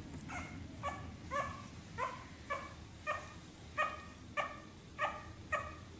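Bulldog puppy yipping and whining in short, high calls, about ten in a steady string at roughly two a second: a puppy fussing and complaining.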